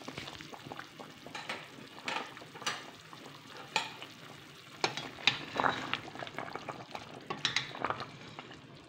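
Chicken tinola broth bubbling in a metal pot: a steady hiss with irregular sharp pops and clicks, and a ladle knocking and stirring through the soup near the end.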